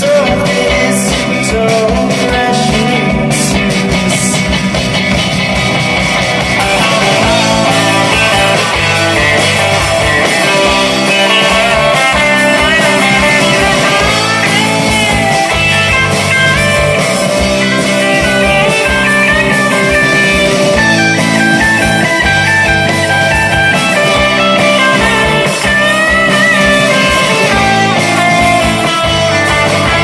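A rock band playing live: two electric guitars, electric bass and drums, loud and continuous.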